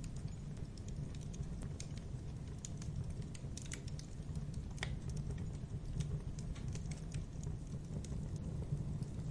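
Logs burning in a fireplace, crackling with irregular sharp pops and snaps over a steady low rumble of the flames, with one sharper snap about halfway through.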